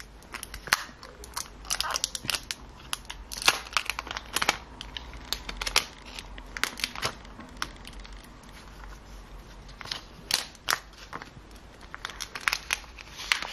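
Irregular sharp clicks and light crinkling from long fingernails and hands handling a new Samsung Galaxy A52s 5G smartphone still wrapped in its protective plastic film.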